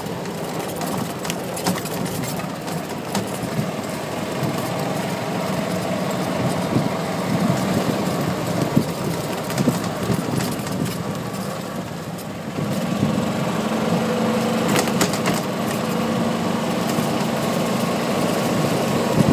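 Golf cart motor humming steadily as the cart drives over a bumpy dirt track, with scattered rattles and knocks from the bumps. About two-thirds of the way through, the motor's note rises and gets louder.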